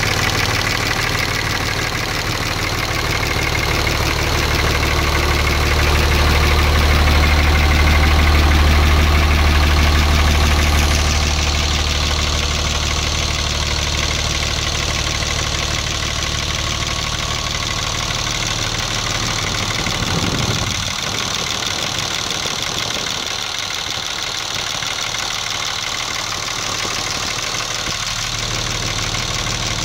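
3rd-gen Cummins common-rail turbo diesel idling steadily with its valve cover off, the open valve train adding to the diesel clatter. A low drone under it swells for several seconds early on and drops away suddenly about two-thirds of the way through.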